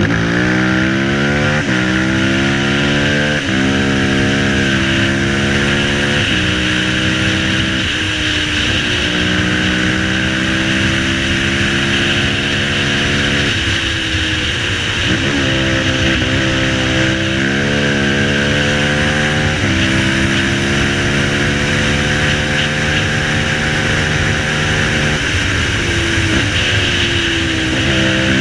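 Dinli 450 quad's single-cylinder four-stroke engine pulling through the gears: its pitch climbs and drops back at each of several upshifts in the first half, falls away about halfway, climbs again, then holds steady before easing off near the end. A constant rush of wind on the helmet microphone runs underneath.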